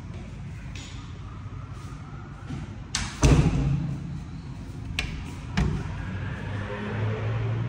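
Wooden interior door being handled and opened: a sharp click and a heavy thump about three seconds in, then two more latch-like clicks a couple of seconds later as the lever handle is worked, over a steady low hum.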